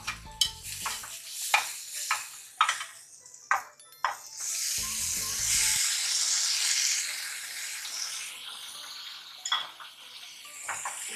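A metal spoon scraping and clicking against a stainless-steel pressure cooker as onions and spices are stirred in hot oil. About four seconds in, minced mutton goes into the oil and a sizzle starts, fading slowly over several seconds.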